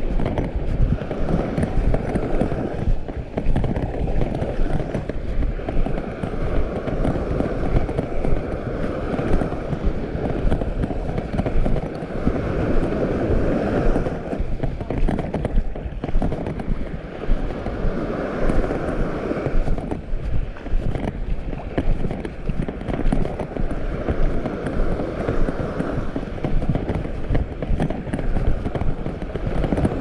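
Footsteps of someone walking steadily on sand at the water's edge, with small waves washing up on the shore every five or six seconds.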